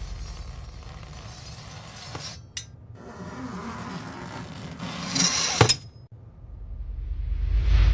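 Edited sound effects: a short sharp click about two and a half seconds in, then a rising rush that ends in a loud sharp click, followed by another whoosh swelling near the end.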